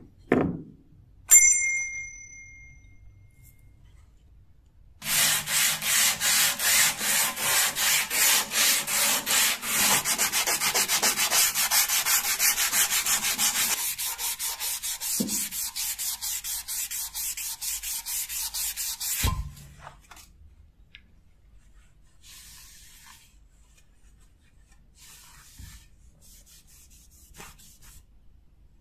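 Sandpaper rubbed by hand along a steel knife blade in quick back-and-forth strokes, about four a second, for roughly fourteen seconds, ending in a knock. Near the start, a thump and a single ringing bell ding; fainter rubbing follows the strokes.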